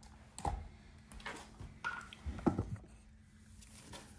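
Hands handling a small plastic lens guard and cardboard packaging on a desk: a handful of light clicks and taps in the first three seconds, then quieter.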